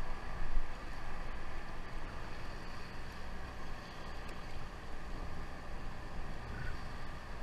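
Steady low rumble and wash of a sportfishing boat at sea: its engine running under the noise of water along the hull.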